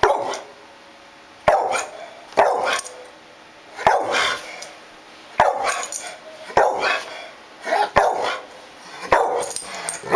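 Red-nose pit bull barking at a metal screen door handle it is wary of: a dozen or so sharp barks, about one a second, in uneven bunches.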